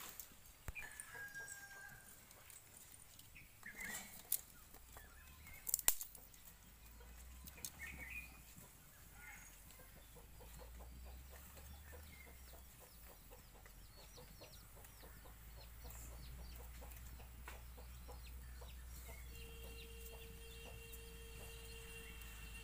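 Domestic chickens clucking in short, scattered calls, with a couple of sharp knocks about four and six seconds in and a faint steady tone joining near the end.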